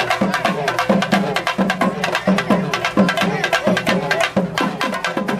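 Loud festival drumming, with many quick, even strokes a second, under a wavering melody line.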